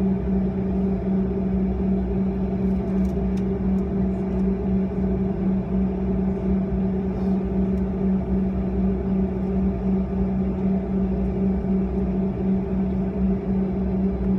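Steady cabin drone inside a Bombardier CRJ-200 standing still with its two rear-mounted GE CF34 turbofans idling: a low rumble under a constant hum.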